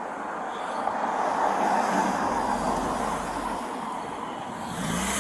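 Road traffic noise: a vehicle passing on the street, its tyre and engine noise swelling and fading, with engine hum rising again near the end.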